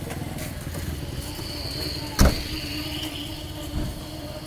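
A steady low mechanical rumble, with a sharp thump about two seconds in and a softer thump near the end. Faint high steady tones sound between them.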